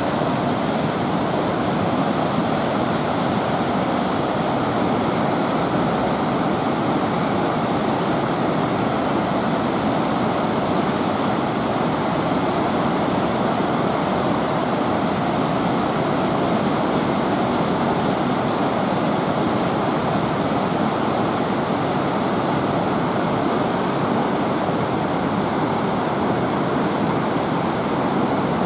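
A river in flood after heavy rain: fast, muddy, swollen water rushing and churning, with a steady rush of water noise.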